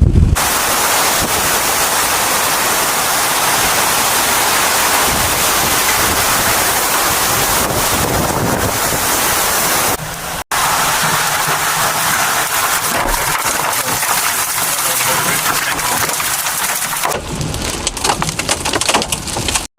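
Heavy rain pouring down as a dense, steady hiss, which breaks off for a moment about halfway through. Near the end it turns patchier, with crackling, spattering strokes.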